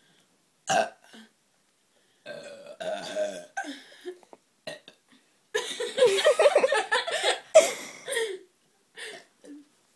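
Girls burping loudly: a short burp just under a second in, a longer one a couple of seconds later, then a long drawn-out burp through the middle of the stretch.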